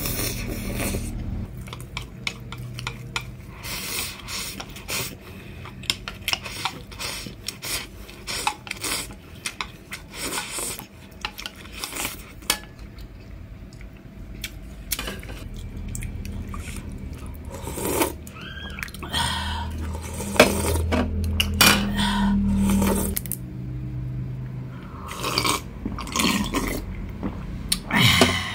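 Close-up eating sounds: instant noodles being slurped and eaten, with chopsticks and a metal spoon repeatedly clicking, clinking and scraping against plates and a bowl.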